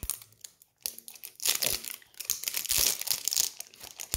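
Clear plastic wrapping crinkling and tearing as it is pulled off a round candy container, loudest from about a second and a half in until near the end.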